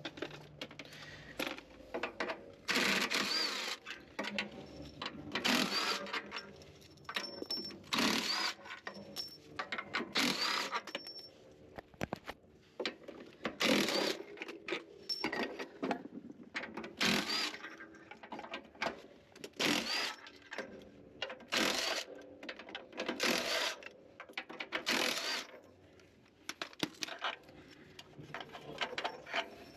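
Hand tools working on metal heater parts: repeated bursts of metallic clinking and rattling, about one every two to three seconds.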